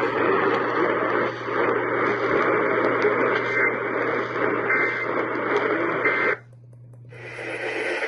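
Radio static: a dense hiss with a steady low hum under it, from a radio receiver with no programme. About six seconds in it cuts out abruptly, and a brighter hiss fades back up a second later.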